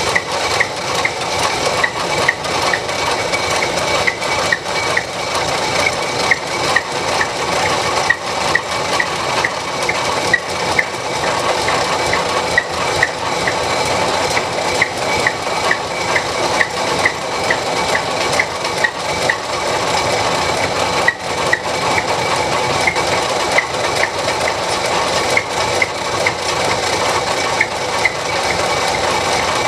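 Steady mechanical running noise with light, irregular ticks about two or three times a second, from cleaning rust off a rifle barrel in the workshop.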